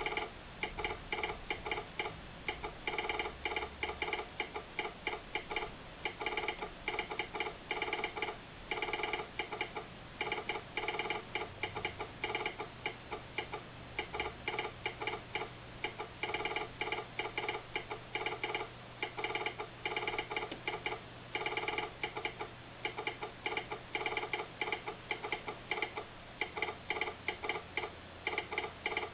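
Telegraph sounder clicking out Morse code, here a railroad train order. Rapid runs of clicks in groups with short pauses between them.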